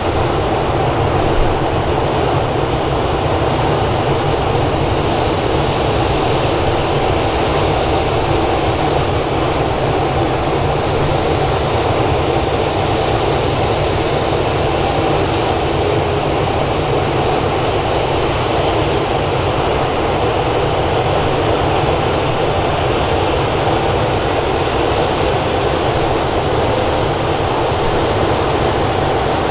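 Boeing 717's twin rear-mounted Rolls-Royce BR715 turbofans on final approach, a distant steady jet rumble and hum.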